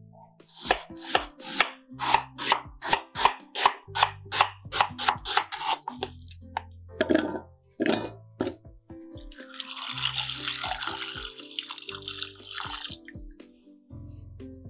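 Knife chopping peeled potatoes on a wooden cutting board, about four cuts a second for the first six seconds. Diced potato pieces then clatter into a stainless steel pot, and water pours into the pot for about three seconds. Soft background music runs underneath.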